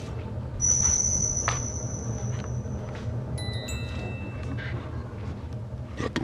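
Eerie ambient soundtrack: a steady low drone with a thin high tone held for about two seconds, then bell-like chime tones struck together about halfway through and ringing out.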